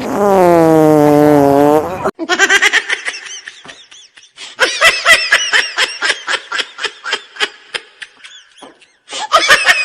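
A long, buzzy fart sound effect, sliding slightly down in pitch and cutting off abruptly about two seconds in, followed by rapid bursts of high-pitched laughter.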